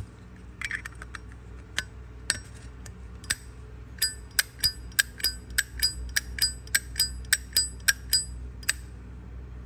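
The hinged lid of a 1989 Zippo brass lighter is flicked open and snapped shut over and over. After a few scattered handling clicks, there is a quick run of ringing metallic clinks, about three a second, for several seconds.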